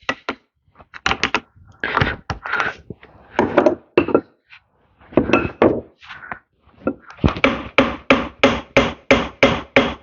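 Hammer blows on a Ford 7610 tractor part being knocked apart during disassembly: scattered knocks at first, then steady repeated strikes about three a second from about seven seconds in.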